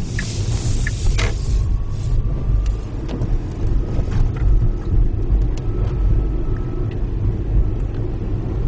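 Steady low rumble of tyres and road heard inside the cabin of a Tesla electric car driving slowly and gathering speed, with a short hiss about a second in and a few light clicks.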